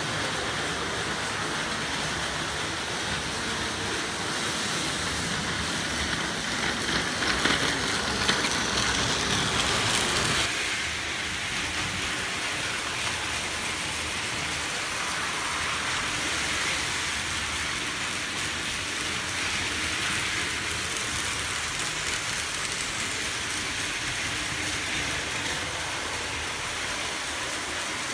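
Several battery-powered Plarail toy trains, the yellow Seibu 9000 series among them, running together on plastic track: a steady whir of small motors and gears with wheels rattling on the track. The sound grows louder for a few seconds, then drops suddenly about ten seconds in.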